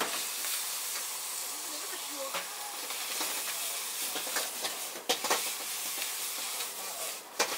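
Food sizzling hard in a wok over a high flame while a metal ladle stirs it, scraping and knocking against the wok several times.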